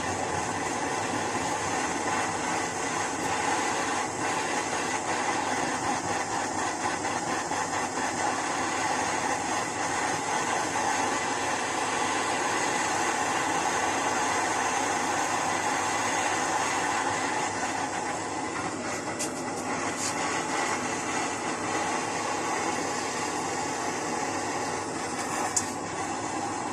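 A steady machine-like hum and hiss that does not change, with a few faint ticks and one short sharp click near the end.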